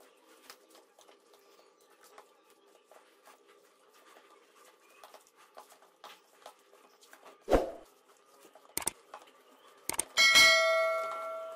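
Hands kneading spiced minced chicken in a stainless steel bowl, with faint soft squishes and clicks. There is a thump past seven seconds. About ten seconds in, the steel bowl is knocked and rings with a clear metallic, bell-like tone that fades slowly.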